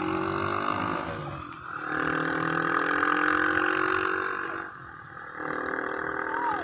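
A woman's voice wailing in long, drawn-out cries, each held for about three seconds with a short break between them.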